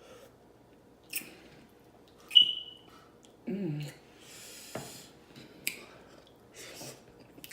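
Close-miked eating of a seafood boil: wet lip smacks, clicks and sucking, with a hummed "mm" just past halfway. The loudest sound is a sharp click with a brief ring about two and a half seconds in.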